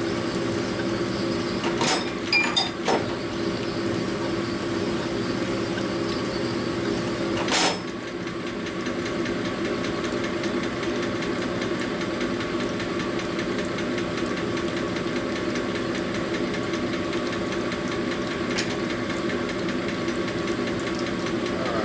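A motor-driven machine running steadily with an even hum. A few sharp metallic clicks come about two to three seconds in, and one more just before eight seconds.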